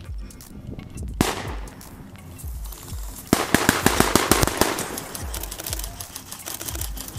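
Airsoft rifle fire: one sharp shot about a second in, then a rapid automatic burst lasting about a second and a half. Background music with a steady beat plays underneath.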